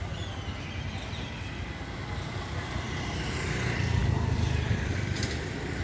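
Road traffic: a steady rumble of motor vehicles, swelling as one passes close about four seconds in.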